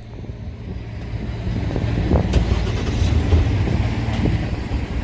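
A car driving past at low speed: a low engine and tyre rumble that swells over the first three seconds and eases off near the end.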